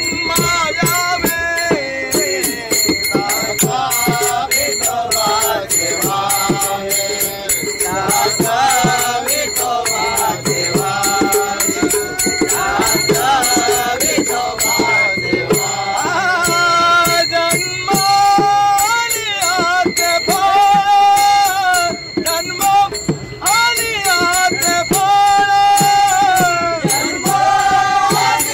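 A group of men singing a Marathi Warkari bhajan (abhang) together, kept in time by small brass hand cymbals (taal) and hand clapping in a regular beat, with the cymbals ringing steadily underneath.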